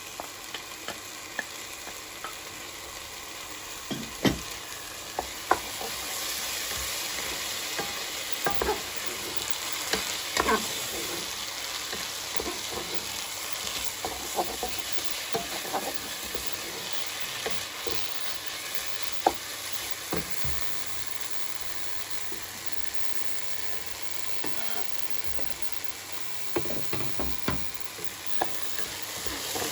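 Rice and vegetables frying in a pan, sizzling steadily while being stirred, with scattered sharp knocks of the stirring utensil against the pan.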